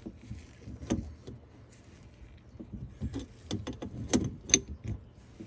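Metal clicks and clinks of a wrench and faucet supply-line fittings being handled while a coupling nut is tightened, with a run of sharp clinks in the second half and the loudest about four and a half seconds in.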